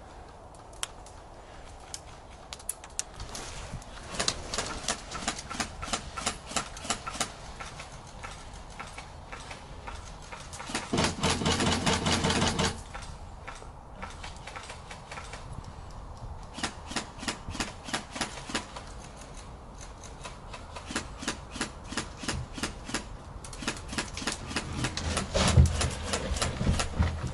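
Airsoft guns firing: runs of sharp clicking shots, several a second, with a longer, louder rapid-fire burst lasting about two seconds near the middle.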